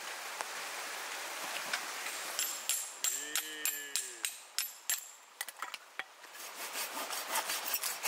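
A quick run of sharp clicks and knocks, several with a bright metallic ring, in the middle few seconds, over a steady faint hiss.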